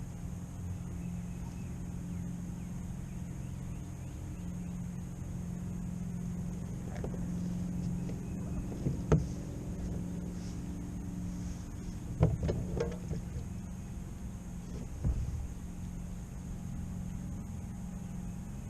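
Steady low drone of a boat engine, with a few sharp knocks about nine, twelve and fifteen seconds in.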